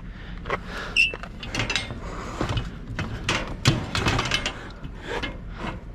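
Irregular metallic clicks, knocks and rattles from scrap metal being handled and secured, with a short ringing metal ping about a second in.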